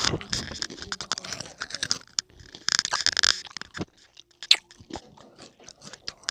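Crunchy chewing of hot Cheetos close to the microphone, loudest in the first two seconds and again about three seconds in, then softer with scattered clicks.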